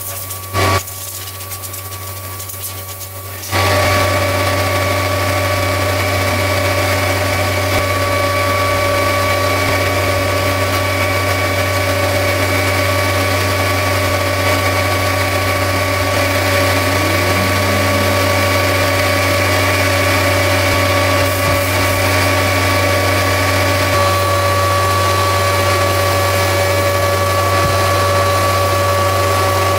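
A motor running steadily at constant speed, switched on and off twice in quick succession near the start, then running without a break from about three and a half seconds in.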